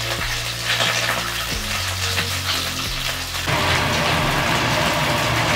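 Squid pieces shallow-frying in hot oil, a steady crackling sizzle, over background music; the sound grows louder and denser about three and a half seconds in.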